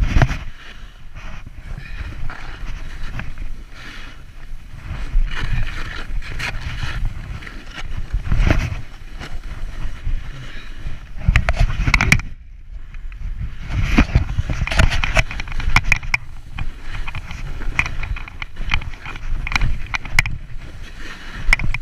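Snowboard sliding and carving down a snow slope, the edge scraping snow with scattered short crunches, over rough wind buffeting on the GoPro's microphone. The sound briefly drops away about twelve seconds in.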